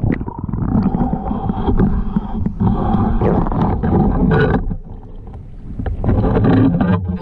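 Muffled underwater sound from a GoPro in its waterproof housing, submerged on a pole: water churning and bumping, with scattered knocks as the pole pushes against the rocks. It starts abruptly as the camera plunges in and stops as it is lifted out at the end.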